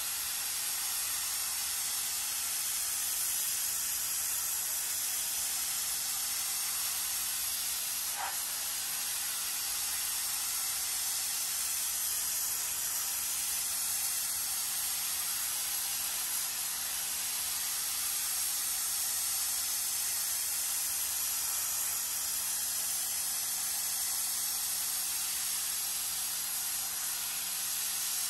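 High-pressure water jet from a pressure washer wand spraying steadily onto carpeted car floor mats, a continuous hiss.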